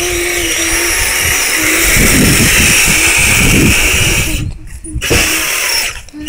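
6x6 RC rock crawler's electric motor and gear drive whining steadily as it drives, with a low rumble underneath; the whine cuts out about four seconds in, comes back briefly, and stops again near the end.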